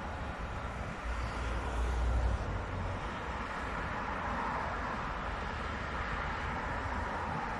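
Steady noise of busy multi-lane motorway traffic, the tyres and engines of passing cars. A heavier low rumble swells from about one to two and a half seconds in.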